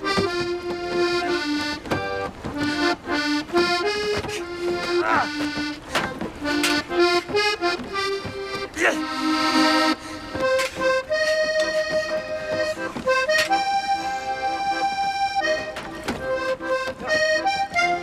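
Accordion playing a lively melody in changing held and quick notes, with sharp percussive strikes.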